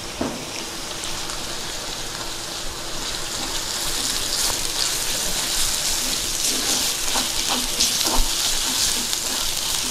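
Ginger-garlic paste and fried onions sizzling in hot oil in a pan, with scattered pops and crackles; the sizzle grows louder about four seconds in.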